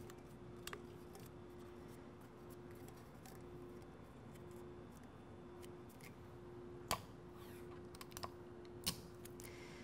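Faint handling sounds of paper and heat tape being worked around a tumbler: scattered light clicks and taps, the sharpest about 7 and 9 seconds in, over a faint steady hum.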